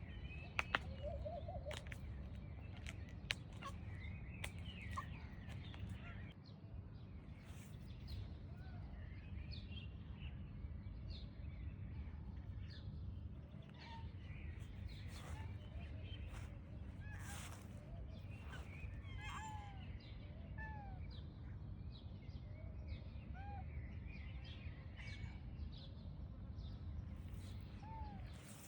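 Scattered short bird chirps and calls over a steady low outdoor rumble, with a few sharp clicks in the first few seconds.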